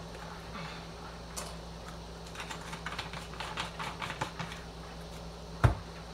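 A run of quick light clicks and taps as spice bottles are handled on a kitchen counter, then one sharp knock near the end.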